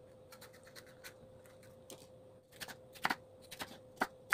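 Kitchen knife cutting a yellow bell pepper on a wooden cutting board: faint light taps at first, then sharper knocks of the blade striking the board from about two and a half seconds in.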